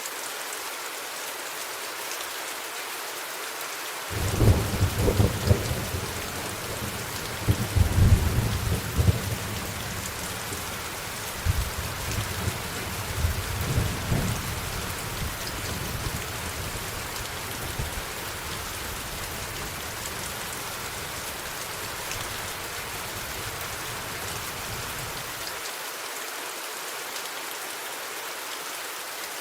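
Steady rainfall with a long roll of thunder: a low rumble breaks in about four seconds in, peaks a few seconds later with several surges, and dies away over the next quarter minute.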